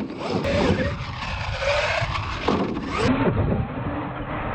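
Radio-controlled monster truck's motor revving up and down in pitch several times as the truck accelerates and turns on the dirt course.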